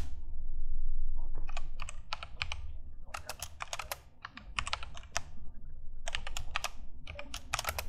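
Typing on a computer keyboard: quick runs of keystrokes with short pauses between them, entering a short line of text.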